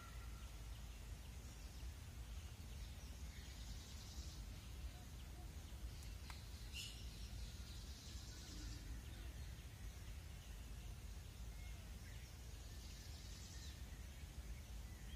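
Quiet open-country ambience: a steady low rumble with a few faint, scattered chirps of small birds. The peacock does not call.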